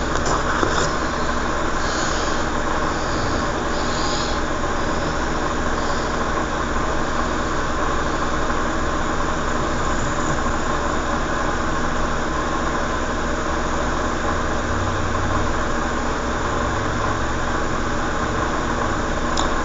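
Steady background hum and hiss, unchanging throughout.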